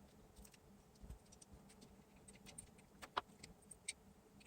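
Faint, scattered small clicks and taps of a DIP chip being handled and worked against its IC socket. The sharpest clicks come about three and four seconds in.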